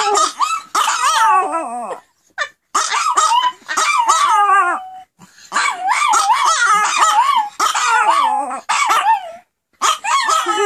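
Several Pomeranians howling together in a chorus of high, wavering howls and yips. They break off briefly three times, then start again.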